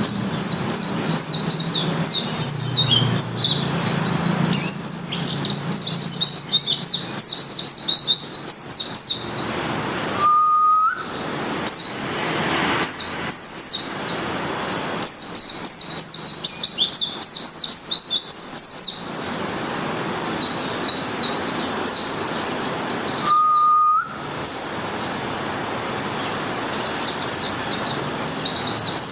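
White-eye (pleci Malang) singing: long runs of rapid, very high twittering notes with brief pauses. Twice, during those pauses, a short lower steady tone rising at its end.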